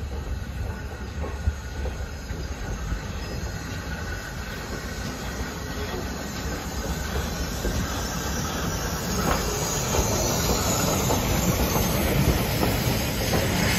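GWR 5101-class 'Large Prairie' 2-6-2 tank engine running slowly into a station with its coaches. Steam hisses from the cylinder drain cocks and the wheels clatter over the rail joints, the sound growing louder as it draws near, with the hiss stronger from about nine seconds in.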